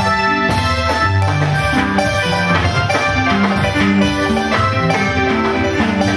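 Music with a steady drum beat under a bright melody and a moving bass line.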